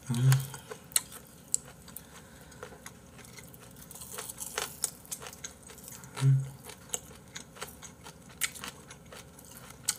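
Eating sounds: chewing, with many small sharp clicks of chopsticks against bowls and plates. Two short low hums of a voice come just after the start and about six seconds in.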